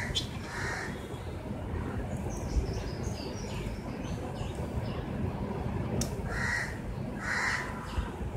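A bird cawing: two pairs of short, harsh calls, one pair at the start and another about six and a half seconds in, over a steady low background rumble.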